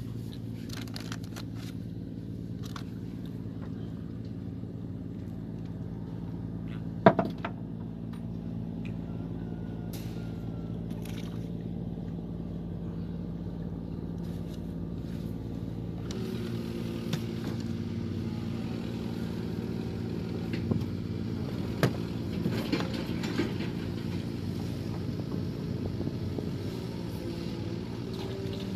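A steady low engine drone, an even hum of a motor running nearby. A sharp knock comes about seven seconds in, and a few lighter knocks and clicks come later.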